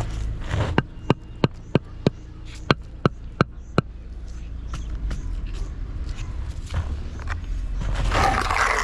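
About ten sharp knocks in a steady run, roughly three a second, typical of hammer blows, over a steady low rumble, with a rough scraping noise near the end.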